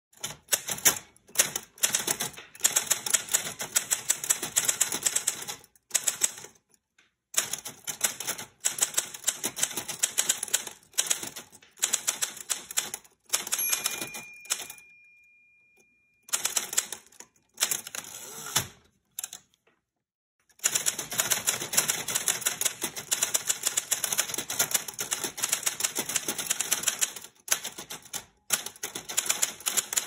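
Typewriter keys being struck in quick runs of clacking strokes, with short pauses between bursts. About halfway through, the margin bell dings once and rings out.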